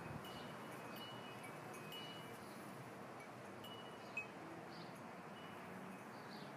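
Light chimes tinkling: short, high single pings at uneven intervals, roughly one a second, over a faint steady hiss, with one sharper click a little after four seconds in.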